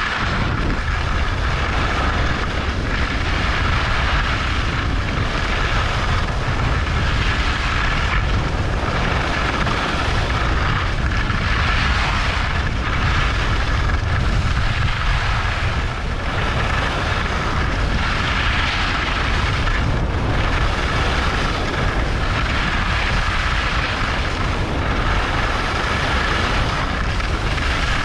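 Wind buffeting the camera's microphone, with the steady hiss of skis sliding over snow, during a fast ski descent. It is a continuous rushing rumble that hardly changes in level.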